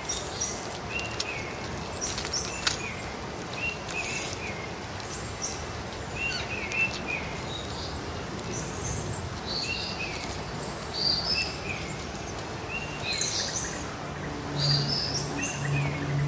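Birds chirping over steady outdoor background noise: short, stepped high calls repeating every second or two, with a low hum joining in near the end.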